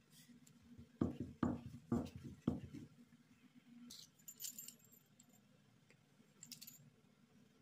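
A wooden rolling pin thuds four times on the worktop as it flattens a ball of dough. Later come light metallic clinks and jangles from a double-wheeled metal pastry cutter as it is picked up and run over the dough.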